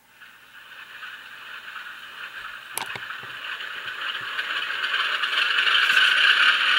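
HO-scale DCC locomotive, just powered up on the track, giving off a steady hissing whir that grows louder throughout, with a sharp click about three seconds in and another near six seconds.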